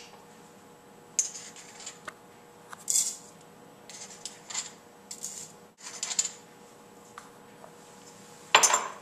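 Metal spatula scraping and tapping crushed salt out of a white ceramic mortar into a plastic weigh boat: a string of short, high scrapes and clinks, the loudest near the end.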